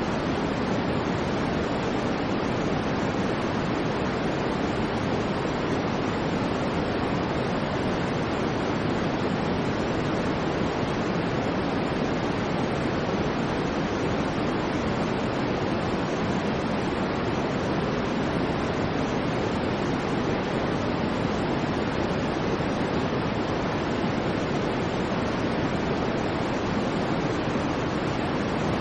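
Steady synthetic noise, even and unchanging, weighted toward the low-middle and rolling off in the highs, much like pink noise.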